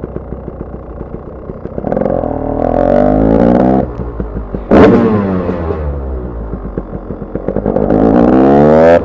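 Fuel-injected KTM 300 TPI two-stroke engine with an FMF racing pipe and Akrapovic silencer being ridden hard: the pitch climbs, cuts off sharply about four seconds in, a loud crack comes about a second later, then it falls away and climbs again near the end.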